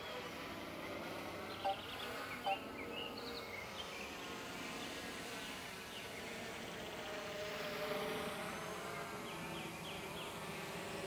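DJI drone's propellers buzzing in flight: a steady whine of many close tones that drift slowly in pitch. Two short, sharp blips stand out about two and two and a half seconds in.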